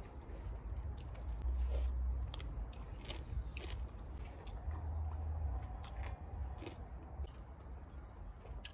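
Close-up chewing and mouth sounds of someone eating rice and curry by hand, with many short wet clicks and a few crunches, over a low rumble.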